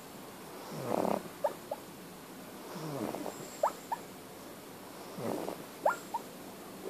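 A sleeping pug snoring: a slow, faint breath about every two seconds, three in all, each followed by one or two short, high squeaky whistles that rise in pitch.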